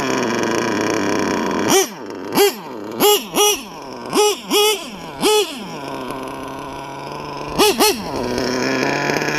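LRP .32 two-stroke nitro engine with a Novarossi race carb, on an RC truck, dropping to idle and then blipped sharply about seven times in quick succession, each blip a short rising-and-falling scream, with two more blips near the end before it pulls away again. The owner has the carb's high-speed needle set a bit lean.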